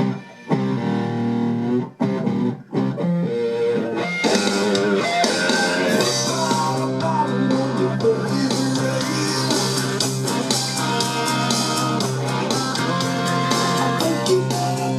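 Guitar-led rock music played back through a Klein & Hummel Telewatt VS 56 tube amplifier and speakers. A few short gaps come in the first seconds, then the full band comes in about four seconds in.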